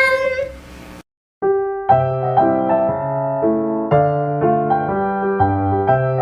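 A held sung note fades out, then after a brief silence a keyboard introduction starts about a second and a half in, playing chords over bass notes that change every half second or so.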